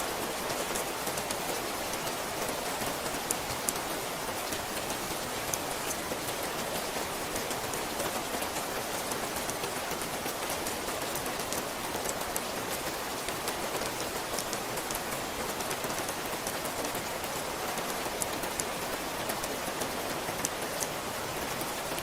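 Steady rain falling, a dense hiss with many sharp individual drops pattering through it.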